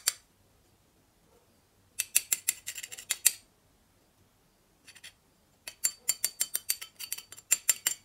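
Sparking from a homemade ballast welding machine's electrode against metal: rapid sharp crackling clicks in four bursts, stopping and starting, with near silence between them.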